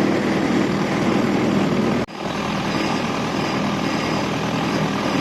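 Boat engine running steadily, with a sudden short break about two seconds in before the same running sound resumes.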